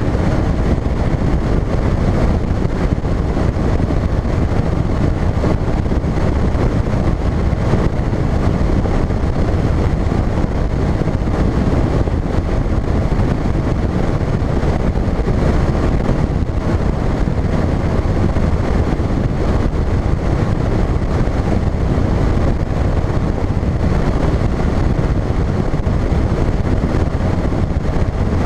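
Phoenix bass boat running across open water: a loud, steady rush of outboard motor and wind buffeting the microphone, unchanging throughout.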